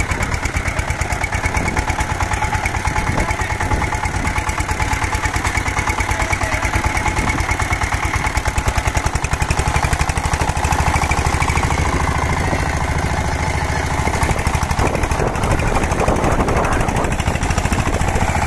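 Single-cylinder diesel engine of a two-wheel power tiller running with a steady, rapid beat of firing strokes while it drives the tiller through the mud under load.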